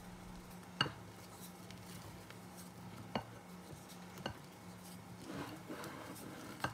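Rubber spatula folding a thick, creamy pudding mixture in a glass mixing bowl: quiet soft stirring, with three sharp clicks as the spatula knocks against the glass, about a second in, at about three seconds and at about four seconds.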